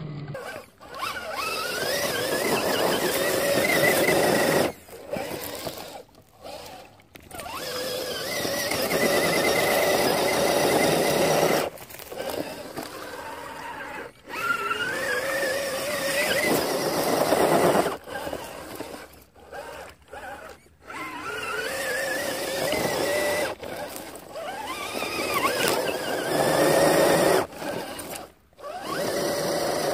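An RC scale crawler's electric motor and gearbox whine in repeated bursts as the throttle is applied and released while the truck climbs through mud. The pitch rises and falls within each burst, and each burst cuts off sharply.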